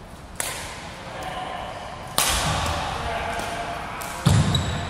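Badminton rally: a racket strikes the shuttlecock three times, about two seconds apart, each crack ringing in the gym hall; the third comes with a heavy thud.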